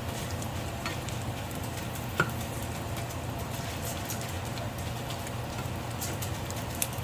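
Dried anchovies (dilis) frying in oil on low heat: a steady light sizzle with scattered small crackles and pops, and a few sharp clicks, the loudest about two seconds in.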